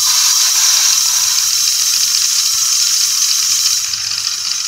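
Loud hiss of compressed air blown into the boiler of a homemade single-acting oscillating-cylinder model steam engine, which runs on the air with a rapid mechanical ticking. The hiss eases slightly near the end.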